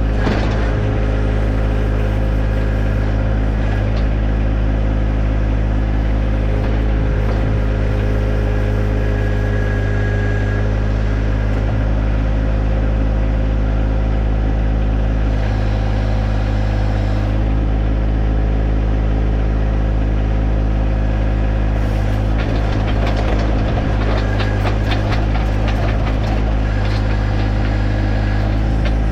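John Deere 1025R compact tractor's three-cylinder diesel engine running steadily while the 260B backhoe digs. A spell of clicking and clatter comes in near the end.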